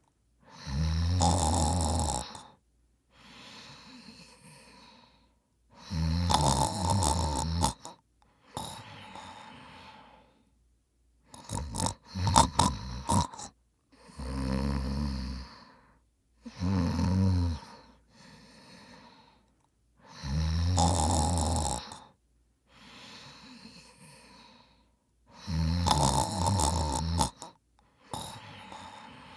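A man snoring in his sleep: seven loud snores, roughly one every four to five seconds, with quieter breaths between them. A little before halfway, one snore breaks into several short, choppy snorts.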